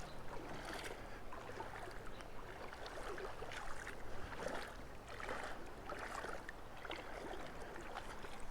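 Legs wading through shallow river water, a swish and splash of water with each stride, about one a second, over the steady flow of the river.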